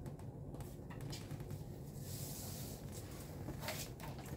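Faint handling noises: light rustling and a few soft clicks and knocks as a laptop charger and its cable are handled, over a steady low hum.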